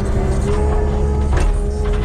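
Background music with a steady machine engine running underneath.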